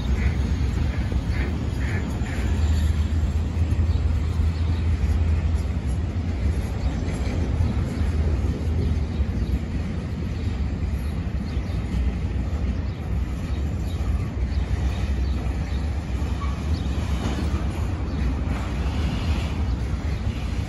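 A train running past on the line, a steady low-pitched noise that holds through the whole stretch.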